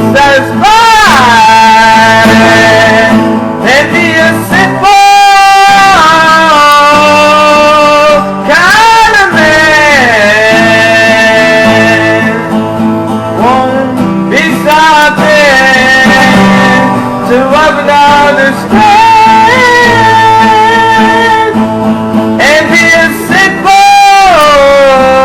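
A man singing long held notes with vibrato over a strummed guitar, the closing phrases of a country-rock ballad, with short breaks about five seconds in and near the end.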